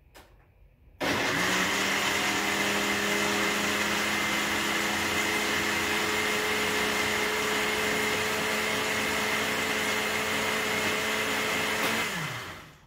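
Countertop blender switched on about a second in, its motor running at one steady speed as it blends cooked pumpkin and okra in peanut-and-water liquid, then switched off near the end, the motor winding down with a falling pitch.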